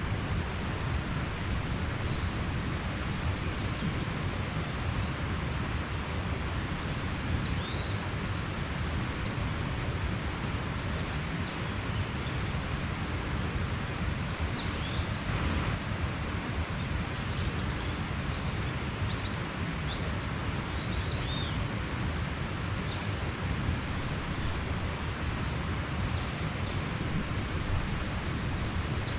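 Steady rushing of a mountain stream, with small birds giving short high chirps scattered throughout.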